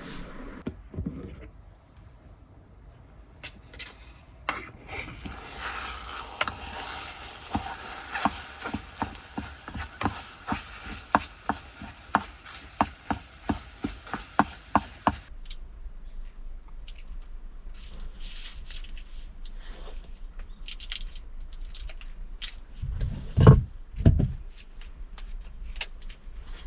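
A utensil scraping and tapping in a bowl, about twice a second for some ten seconds, as eggs are mashed and stirred for egg salad; then scattered light clicks and two heavy thumps near the end.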